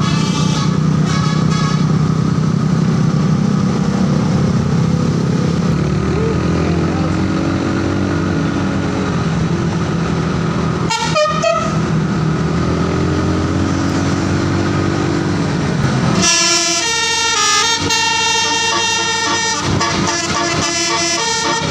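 A road vehicle's engine runs, twice rising and falling in pitch. About three quarters of the way in, a bus telolet horn, a set of musical air horns, starts playing a quick tune of changing notes.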